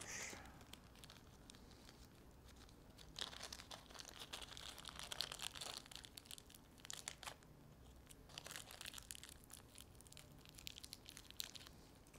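Faint crinkling of a small plastic parts bag holding M3×6.5 bolts as it is handled, in two spells of rustle starting about three seconds in and again about eight seconds in.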